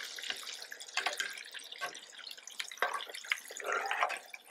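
Hot oil sizzling and crackling in a cast iron Dutch oven as breaded pieces of wild hog steak deep-fry, with several sharp clinks of a wire-mesh strainer scoop against the pot as the pieces are scooped out.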